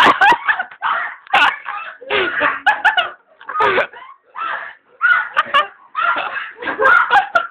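Voices laughing and calling out in short loud bursts, with a few sharp knocks among them.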